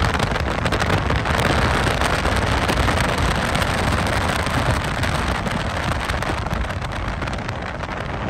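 Steady rushing wind and road noise from a car driving alongside a BNSF freight train, with the train's low rumble underneath. The noise eases slightly near the end.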